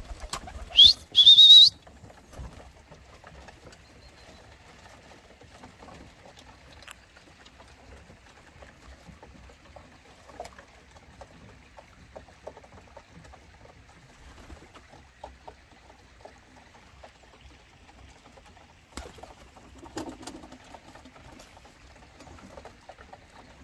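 English tippler pigeons moving about a wooden loft, giving scattered light taps and scuffles on the slatted boards, with a low coo around three-quarters of the way through. About a second in, a short loud squeal rising in pitch.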